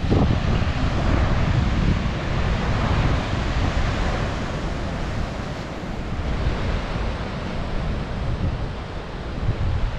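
Ocean waves breaking and surging against rocky shore, swelling loudest in the first few seconds and then easing, with wind buffeting the microphone.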